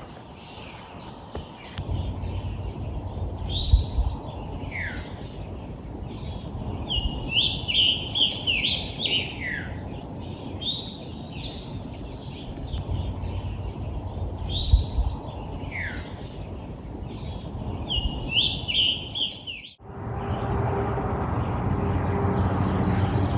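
Songbirds singing in woodland: repeated short phrases of quick slurred whistles, with a high, fast trill about ten seconds in, over a low rumble. Near the end it breaks off into a steady rushing sound.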